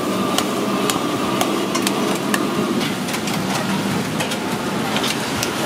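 Conch shells being cracked with a metal meat-tenderizer mallet on a cloth-covered wooden chopping block: a quick, irregular series of sharp knocks and cracking shell, over steady background noise.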